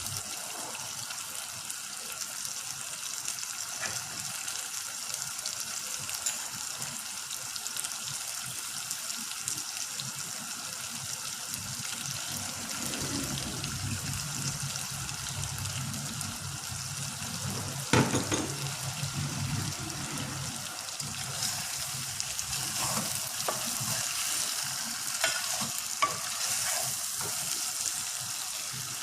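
Food sizzling steadily in hot oil in a pan while a chicken korma cooks. There is a sharp knock about halfway through and a few lighter clicks near the end, and a low hum comes and goes in the middle.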